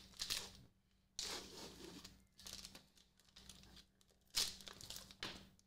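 Plastic wrapper of a beef stick being torn open and peeled back, crinkling in several bursts, the loudest about four and a half seconds in.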